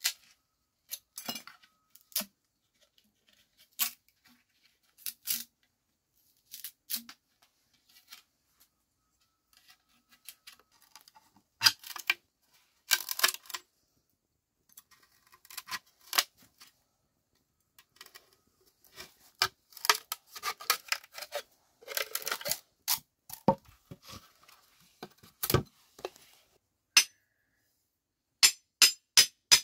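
Green bamboo being split lengthwise with a large knife: scattered sharp cracks and splintering, with longer ripping stretches about halfway through and again about two-thirds of the way in. Near the end, four quick chops of a cleaver into a short bamboo piece.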